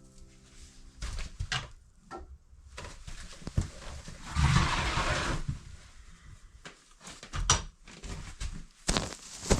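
Scattered knocks and clatters of wooden boards being handled, with a louder rush of noise lasting about a second around the middle.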